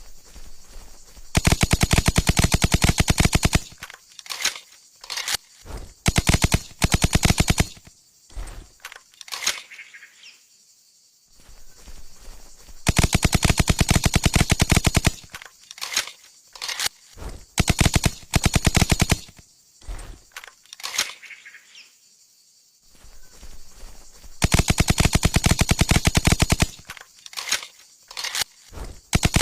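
Suppressed Steyr TMP 9 mm submachine gun firing on full auto: a long burst of about two seconds, then a string of short bursts with faint clicks between them. The same sequence comes three times.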